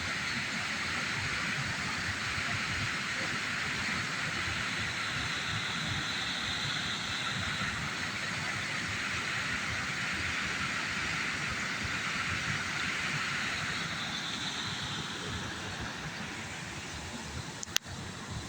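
Steady rush of a waterfall's falling water, an even roar without pauses. A sharp click near the end, after which the rush is a little quieter.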